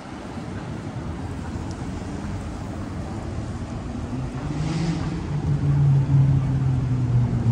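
Street traffic, with a motor vehicle's engine hum growing louder as it passes close in the second half. A brief hiss sounds about halfway through.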